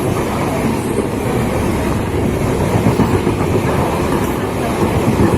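Passenger train hauled by a WAP5 electric locomotive running along the track: a steady, loud rumble of wheels on rail.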